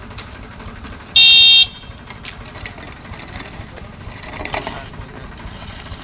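A vehicle horn sounds once, a loud blast of about half a second, over a steady low engine rumble.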